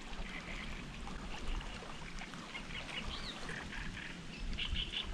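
Fast-flowing water rushing steadily along a narrow channel, with a few bird chirps over it.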